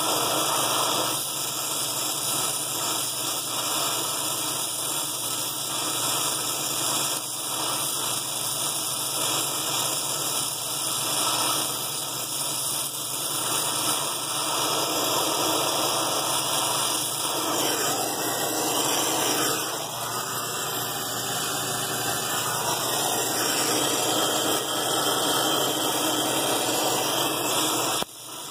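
Brazing torch burning with a steady hissing rush of flame on a copper refrigerant line joint at a freezer compressor, dipping briefly near the end.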